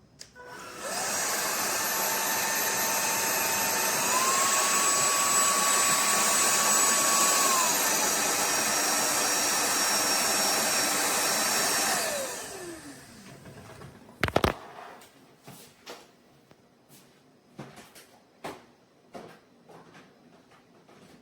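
TVTAU T10 Pro cordless stick vacuum running with a high whine. The whine steps up in pitch about four seconds in and drops back a few seconds later. Around twelve seconds in the motor switches off and winds down with a falling whine, followed by a sharp knock and a string of light clicks and taps.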